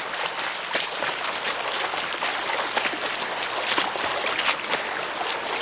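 Swim fins kicking hard at the surface of a swimming pool: a continuous churning splash with many small, irregular slaps of water.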